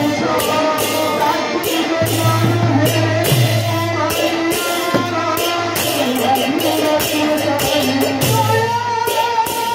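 Devotional kirtan music: a man sings into a microphone over a khol-style barrel drum beaten in a steady rhythm, with metallic hand-cymbal jingle and harmonium. A harmonium note is held near the end.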